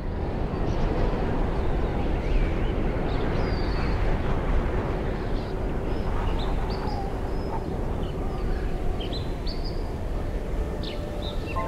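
Birds chirping and singing, many short high calls, over a steady rushing noise of wind or distant water.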